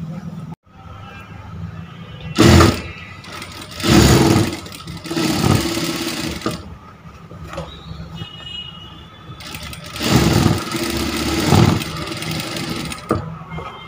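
Industrial lockstitch sewing machine stitching a seam through fabric in several short runs of a second or two, stopping and starting between them, over a steady low motor hum.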